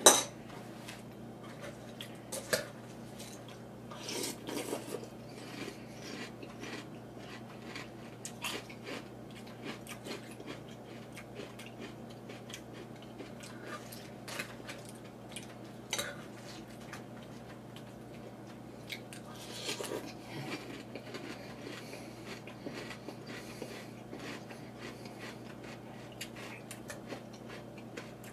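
A person chewing crunchy mouthfuls of chocolate frosted corn flakes in milk, with a metal spoon clicking and scraping against the bowl between bites. The sounds come in scattered small clicks and crunches, a little louder in a few spots.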